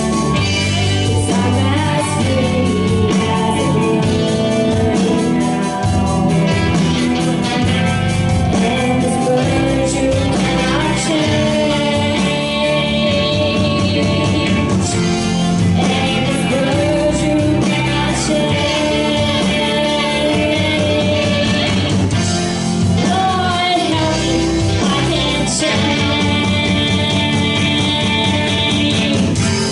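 Live rock band playing, with electric guitar, bass and drums under a sung melody.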